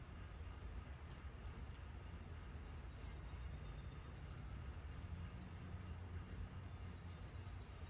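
Three short, very high-pitched chirps from a small animal, spaced about two to three seconds apart, over a steady low hum.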